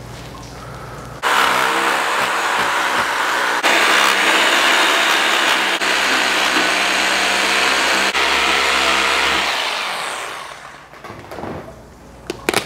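Black & Decker corded reciprocating power saw running as it cuts down the spine of a whole lamb carcass. It starts about a second in, runs steadily, and winds down and stops near the end.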